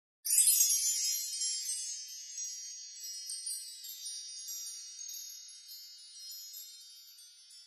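High chimes ringing, many struck in quick succession, starting suddenly at full strength and slowly fading away.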